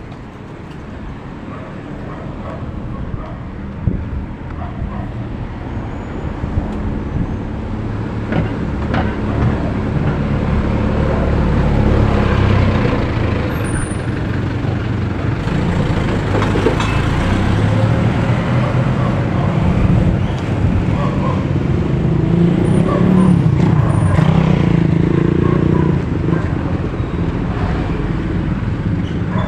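Street traffic with a light truck's engine running close by, growing louder over the first dozen seconds and staying loud, as other cars and motorcycles pass.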